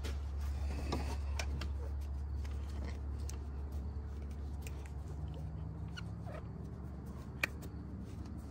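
Steady low hum with scattered light clicks and small rubbing sounds as oil-burner parts are handled and wiped with a rag, and one sharper click near the end.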